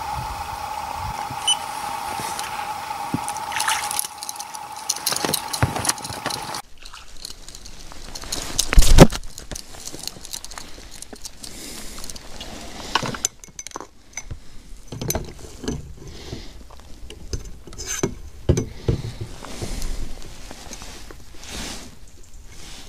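A steady high hum with hiss that cuts off abruptly about a third of the way in. Then a heavy thump about nine seconds in, followed by scattered knocks and rustles as a caught crucian carp is landed and handled in an inflatable boat.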